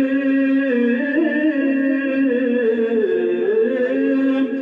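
A man singing a naat, drawing out one long note that wavers slowly in pitch and dips about three seconds in before rising again.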